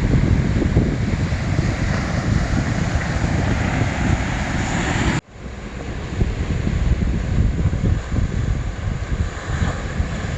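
Wind buffeting the phone's microphone over the steady wash of sea surf. The sound cuts out abruptly for an instant about halfway through, then comes back.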